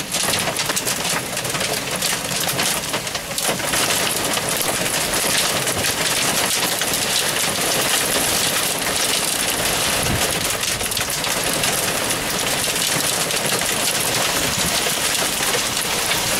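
Heavy thunderstorm rain beating on window glass: a dense, steady patter of drops that thickens and grows a little louder about three and a half seconds in.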